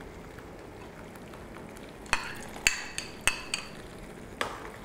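Metal utensil stirring a thick spinach gravy in a stainless steel pan, striking the pan about five times with ringing metallic clinks starting about two seconds in, over a faint steady hiss.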